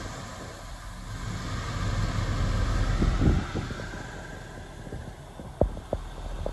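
A 2013 Chevrolet Tahoe's engine idling, heard as a low, steady rumble inside the cabin. There is some rubbing noise about three seconds in and two sharp knocks near the end.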